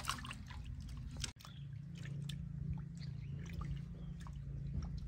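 Water splashing and dripping in a metal basin as a baby monkey is washed by hand and water is scooped over its fur, in many small irregular splashes and drips. A low steady hum sits underneath, and the sound breaks off for an instant about a second in.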